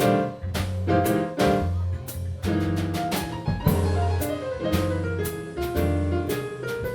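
Background music: jazzy piano with bass and drums keeping a steady beat.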